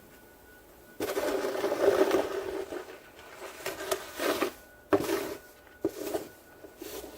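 Snow shovel scraping through snow: one long scrape about a second in, then a run of shorter scrapes.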